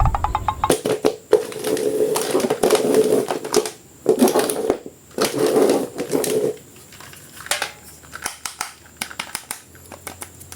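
Toy packaging being handled and opened: plastic and cardboard rustling and crinkling in several stretches, then scattered light clicks and taps near the end.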